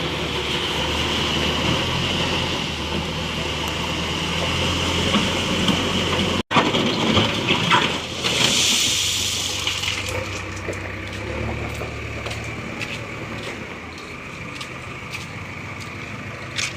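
JCB backhoe loader's diesel engine running steadily, with a loud rush of ballast stones tipped from the bucket into a tractor trolley from about seven to ten seconds in.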